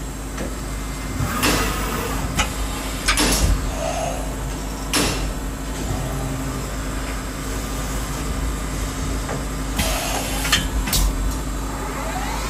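CNC milling machine running between cuts: a steady hum broken by several sharp knocks and clanks.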